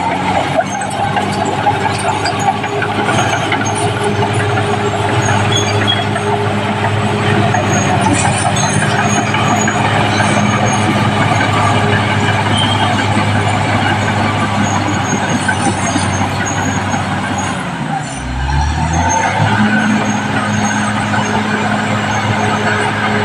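Caterpillar D6R bulldozer's diesel engine running steadily under load; about three-quarters of the way through, the engine note dips briefly and then climbs back up.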